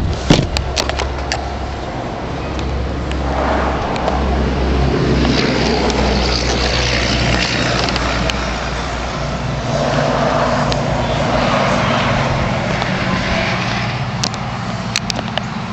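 Mercury 250 Pro XS Optimax V6 two-stroke outboard running steadily as the bass boat moves on the water, with a rush of wind and water that swells twice. A few sharp knocks come in the first second.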